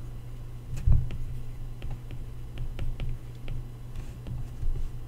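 Stylus tip tapping on an iPad's glass screen while handwriting, a string of light, irregular clicks, with a low thump about a second in and a steady low hum underneath.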